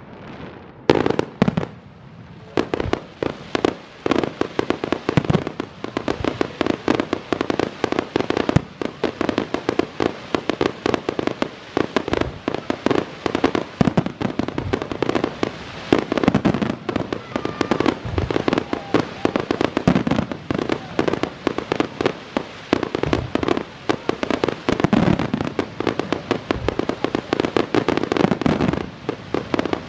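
Fireworks display: a dense, rapid barrage of shell bursts and crackling reports, fired close by, with a brief lull about two seconds in.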